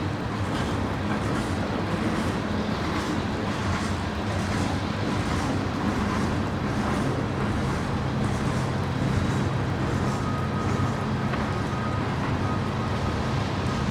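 Steady low engine rumble, with a thin steady tone coming in about ten seconds in.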